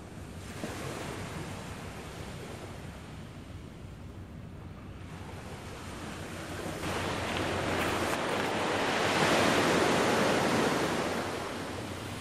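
Small waves washing onto a sandy beach, with one larger wash that swells up about seven seconds in and dies away near the end.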